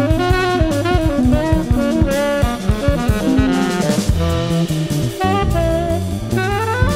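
Jazz trio of saxophone, bass and drum kit playing: the saxophone scoops up into a quick, winding melodic line over moving bass notes and busy drumming.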